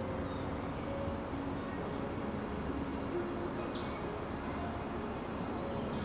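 Steady high-pitched trilling of summer insects, a continuous drone.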